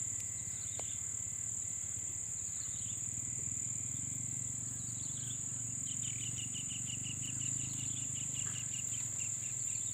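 Insects shrilling in one steady, unbroken high-pitched note. Partway through, a lower run of quick repeated chirps, about six a second, lasts some three seconds.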